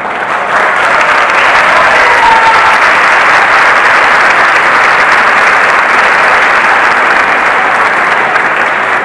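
Theatre audience applauding, a dense steady clapping that swells up in the first half second and eases off slightly near the end.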